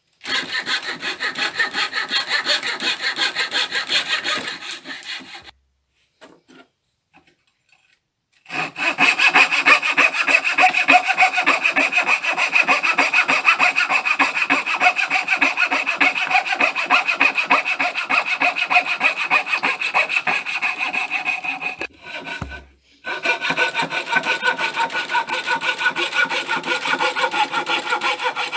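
Coping saw cutting through a tough wooden floorboard by hand in fast, even strokes, about four a second, with a steady ringing note over the rasp of the teeth. The sawing stops for a few seconds about a fifth of the way in and briefly again about three-quarters in.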